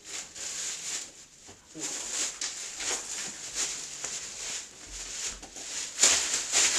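Rustling and handling noises as household belongings and plastic bags are moved about, in irregular bursts that grow louder near the end.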